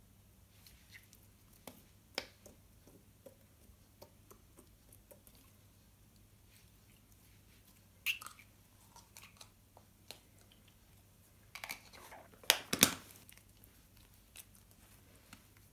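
Bouncing putty being squeezed and stretched by hand, giving faint sticky clicks and squelches. A louder cluster of sharp clicks and knocks comes about twelve to thirteen seconds in.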